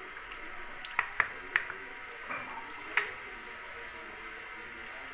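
Fragrance oil trickled from a small bottle into a saucepan of melted soap base: about four small, sharp drip-like clicks over a steady background hiss.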